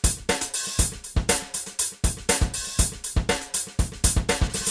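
Drum kit playing a driving groove: bass drum, snare and cymbals striking about four times a second, with cymbal wash ringing between the hits.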